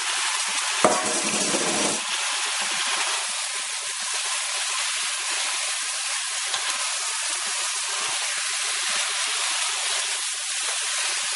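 Raw chicken pieces sizzling in hot oil in a stockpot, a steady hiss, with a sharp knock about a second in as the last pieces are tipped in, then stirred with a wooden spoon.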